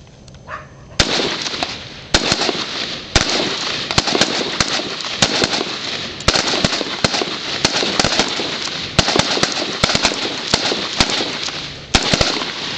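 A line of AR-15-style carbines firing from prone, several shooters at once: rapid, irregular, overlapping shots that start about a second in, with a brief lull near the end.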